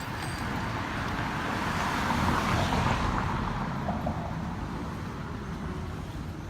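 A road vehicle passing by, its tyre and engine noise swelling to a peak about two and a half seconds in and then fading away, over a steady rumble of traffic.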